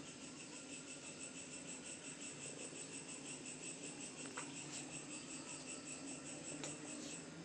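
Insect chirping, likely a cricket: a fast, even train of high pulses, about nine a second, that carries on steadily, with a low steady hum beneath it and a couple of soft clicks.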